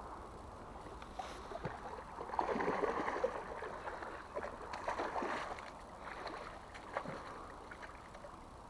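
A koi carp shot on a bowfishing line thrashing and splashing at the water's surface. The splashing comes in bursts, loudest a couple of seconds in and again around five seconds, then dies down.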